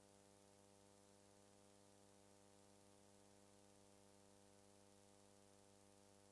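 Near silence: a faint, steady electrical hum with hiss.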